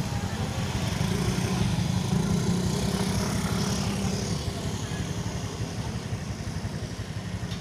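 Motor scooters passing close by, their small engines running. The engine noise is strongest in the first half and fades after about four and a half seconds.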